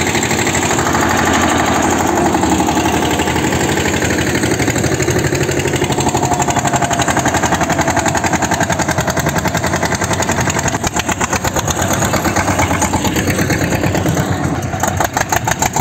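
Farm tractor diesel engines running under load as they drag levelling blades through sandy soil, one passing close by. The engine's rapid firing pulses stand out more plainly near the end.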